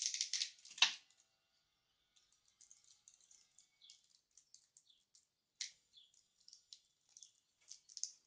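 Wrapper of a solid fuel tablet crinkling and tearing as it is picked open by hand: a dense burst of crackling in the first second, then light, scattered crackles and clicks.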